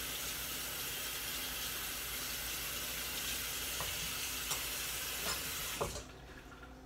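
Kitchen sink faucet running steadily while hands are washed under it, with a few light knocks near the end; the water shuts off abruptly about six seconds in.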